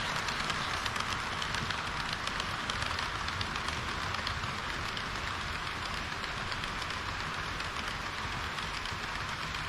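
HO-gauge model train running on layout track: a steady rolling hiss and rumble of wheels and motor, with many faint ticks from the wheels on the rails.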